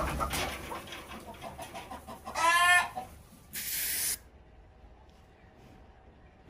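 Chickens clucking in a flurry, with one loud squawk about two and a half seconds in. About a second later comes a short hiss from an aerosol snow-spray can.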